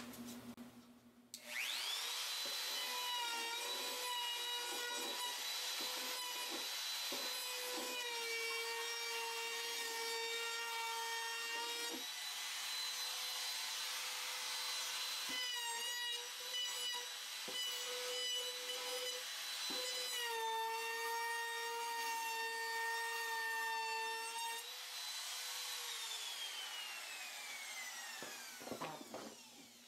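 Handheld router cutting a chamfer along the edges of a 2x4 wooden frame. Its motor spins up with a rising whine, then runs steadily with small dips in pitch as the bit bites into the wood. Near the end it winds down with a falling whine.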